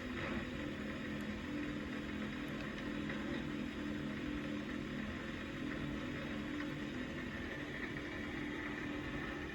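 Small benchtop metal lathe running steadily, its motor and drive giving a constant hum with a higher whine above it.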